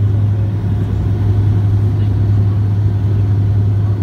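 Bombardier Q400 turboprop heard from inside the cabin on approach with the landing gear down: a loud, steady low drone from the six-bladed propellers, over a rumble of engine and airflow noise.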